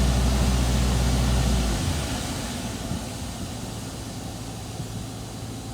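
Deutz diesel engine of an Atlas Copco XAS 137 mobile screw compressor running with a steady deep drone. About two seconds in, the deep drone cuts off abruptly and a quieter steady running hum carries on.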